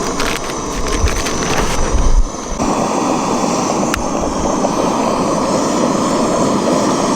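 Light clicks and rustling, then a gas camping stove's burner starting suddenly, about two and a half seconds in, and running with a steady, even rush.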